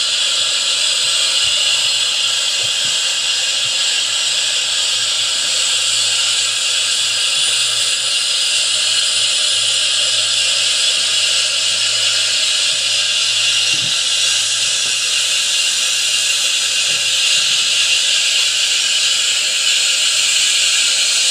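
A recorded airliner engine start-up soundtrack playing through small PC speakers inside a model aircraft fuselage. With both engines running, it gives a loud, steady turbine hiss and rush over a faint low hum.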